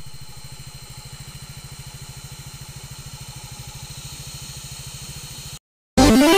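An engine idling steadily with a rapid, even low pulse, cut off abruptly near the end; electronic dance music starts just after.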